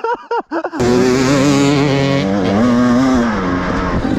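Enduro dirt bike engine revving hard, its pitch wavering up and down with the throttle, starting suddenly about a second in.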